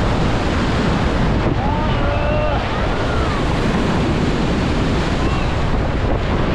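Heavy storm surf breaking and washing up the beach, with strong wind buffeting the microphone.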